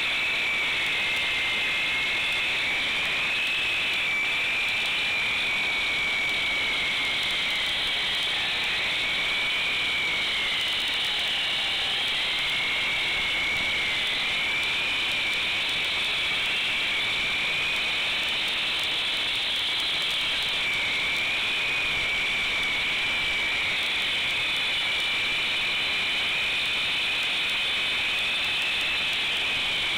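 Handheld concrete saw cutting wet concrete: a steady, loud motor-and-blade whine whose pitch sags and recovers several times as the blade bites into the slab under load.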